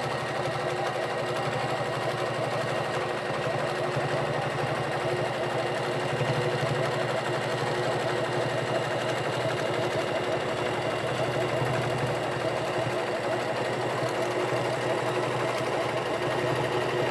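Janome domestic sewing machine running steadily at a fast, even stitch rate, free-motion quilting through a layered quilt with a ruler foot.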